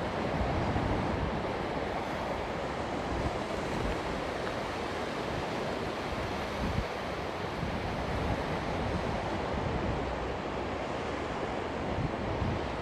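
Big sea waves breaking and washing on a beach, a steady surf roar, with wind buffeting the microphone in low thumps.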